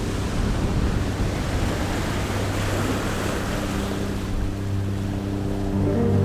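Sea surf washing onto a sandy beach, a steady rushing noise with wind on the microphone. From about four seconds in, a steady low hum, like a distant motor, rises under it.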